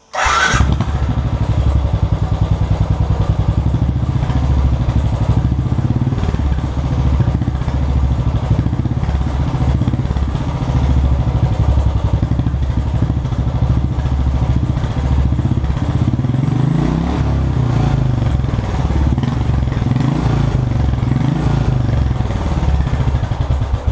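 Royal Enfield BS3 single-cylinder engine firing up through its stock exhaust and ticking over with a steady thump. Between about 16 and 22 seconds in, the revs rise and fall a few times with blips of the throttle.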